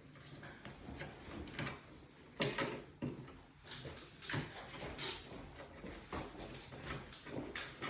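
Scattered knocks, clicks and scrapes of bed frame parts and hardware being handled during disassembly, loudest about two and a half seconds in and again around four seconds in.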